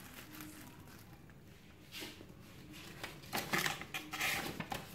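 Plastic packaging (bubble wrap and plastic bags) crinkling and rustling as it is handled, in scattered crackles that get louder and denser in the second half.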